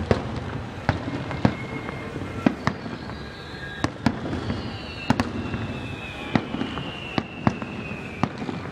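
Aerial firework shells bursting in quick, irregular succession: a dozen or more sharp bangs over a continuous low rumble. From about three seconds in, a long high whistle slowly falls in pitch beneath the bangs.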